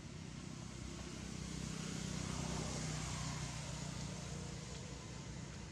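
A motor vehicle passing by: engine hum and road noise swell to a peak about halfway through, then fade away.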